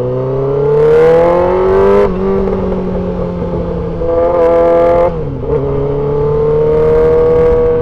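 2003 Yamaha R6's inline-four engine accelerating up through the gears: its pitch climbs, falls at an upshift about two seconds in and again about five seconds in, then climbs slowly again.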